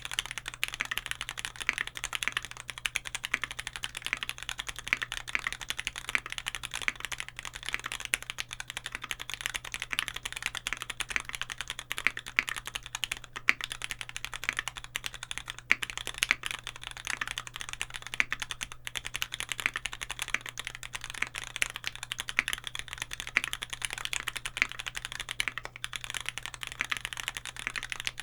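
Continuous fast typing on a Keycult No.2 custom keyboard, with dense, unbroken keystrokes. The keyboard has a gasket-mounted aluminum plate, Cherry MX Nixie linear switches lubed with Tribosys 3204, and GMK keycaps.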